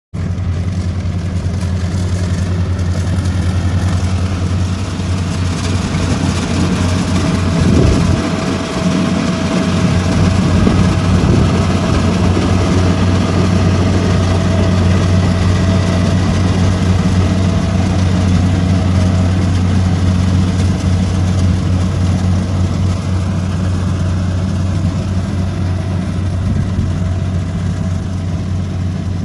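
Small rice combine harvester running steadily as it cuts, a deep even engine drone with a faint higher whine through the middle.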